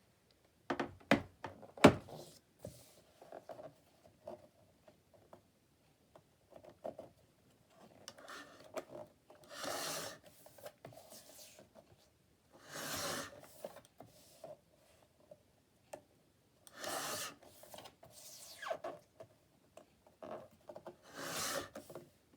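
Paper cutter slicing through paper in four separate cutting strokes, each under a second and a few seconds apart, after a few sharp clicks and knocks about one to two seconds in.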